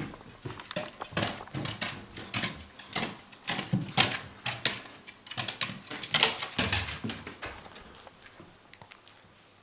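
Shih Tzu's claws clicking and paws thumping on wooden stair treads as it comes down the stairs step by step, in an irregular run of taps that thins out and fades near the end.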